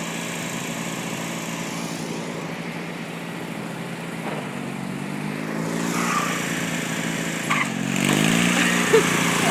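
Lawn mower engine running, revving up twice, around the middle and again near the end, and growing louder toward the end.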